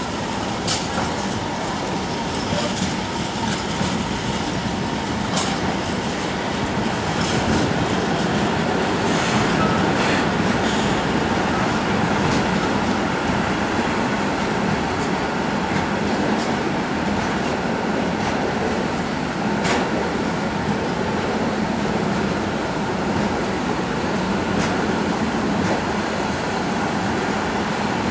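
Container freight train's loaded flat wagons rolling past on the adjacent track: a steady rumble and rattle of wheels on rail, with scattered sharp clicks throughout.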